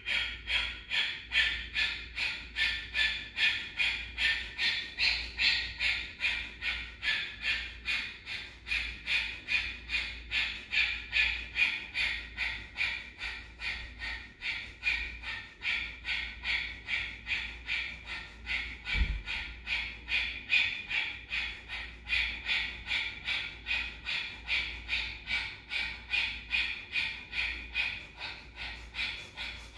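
Kapalabhati breath of fire: rapid, forceful exhales puffed through the nose with passive inhales between, in a steady rhythm of about two a second.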